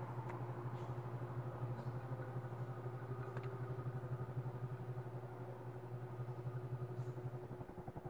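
Ventisol Wind Premium ceiling fan running: a steady low hum that pulses rapidly and evenly, fading out near the end.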